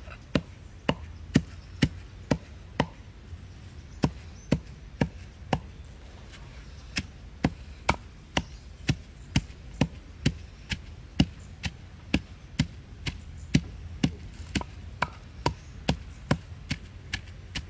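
Wooden pestle pounding in a terracotta mortar, grinding chili and herbs into a spice paste: sharp, even strikes about two a second, broken by two short pauses.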